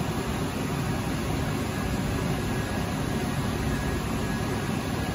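Steady running noise of a powered-up hydraulic high-frequency welding machine: an even low hum with a hiss over it, with no press strokes or changes.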